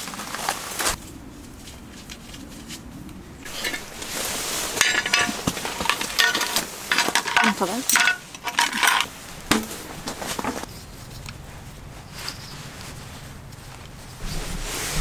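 Dishes and cutlery clinking and clattering during a meal, in a string of short clinks and knocks, densest from about four to ten seconds in.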